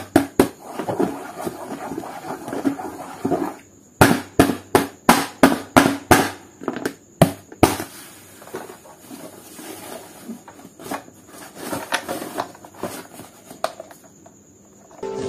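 A series of sharp taps or knocks on a hard surface with rustling in between, strongest as a run of about three or four taps a second in the middle, then fading to faint crackling.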